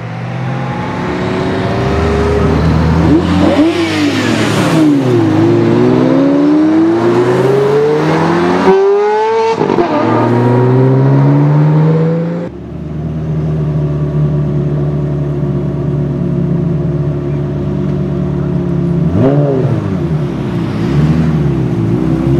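Ferrari V8 sports car engines accelerating hard, the pitch climbing and dropping back at each upshift several times. After an abrupt cut about halfway, a steadier engine note follows, with a quick rev blip late on.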